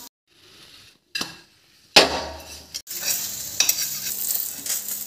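Sabudana and raw-potato cheela sizzling in oil in a pan, with scraping and stirring in the pan and a sharp clank of metal on the pan about two seconds in. The sound comes in short pieces that break off abruptly.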